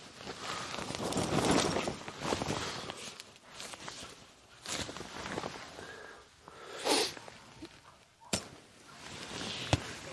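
Camping gear being handled and packed: irregular rustling of fabric and bags in uneven bursts, with two sharp clicks near the end.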